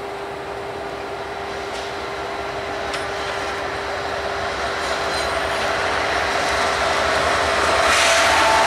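Union Pacific double-stack intermodal train approaching behind its lead diesel locomotives, growing steadily louder as the locomotives come close, with a steady whine underneath.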